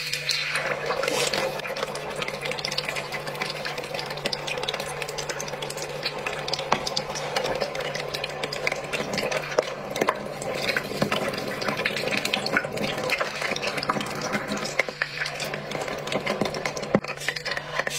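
Metal tongs stirring liquid in a stemmed wine glass, with continual clinking and a dense crackle, over a low steady hum.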